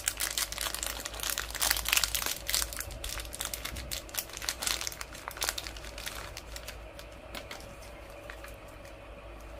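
Thin plastic wrappers crinkling and crackling in the hands as a small toy is worked out of its clear bag. The crackling is densest in the first half and thins out over the last few seconds.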